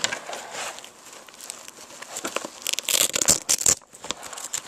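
Nylon fabric and webbing of a Maxpedition Remora gear bag rustling and crinkling as it is turned over in the hands, in uneven bursts that are loudest about three seconds in.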